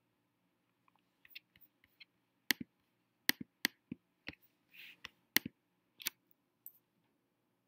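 A dozen or so sharp, irregular clicks from operating a computer, faint at first and loudest from about two and a half seconds in, with a short rustle near five seconds.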